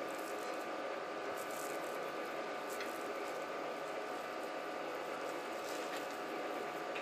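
Steady room hiss with a faint hum, and a few faint soft clicks and squishes as a rolled pancake is handled and bitten into.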